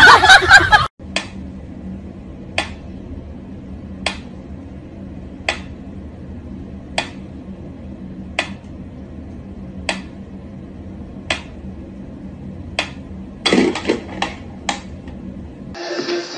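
Pyramid-shaped mechanical pendulum metronome ticking slowly and evenly, about one tick every second and a half, over a steady low hum. Near the end a brief scuffling noise comes with a quick run of a few clicks.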